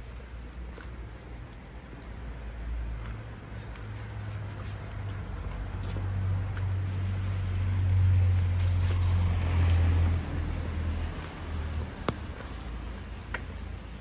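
Steady rain with scattered drops, under a low rumble that swells to its loudest about two-thirds of the way through and then falls away. A few sharp ticks come near the end.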